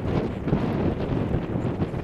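Wind buffeting the microphone: a steady low rumble, with the sound of the boat and the water buried under it.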